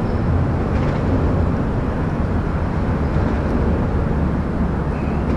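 Wind buffeting the action camera's microphone: a steady, choppy low rumble with a thin hiss over it.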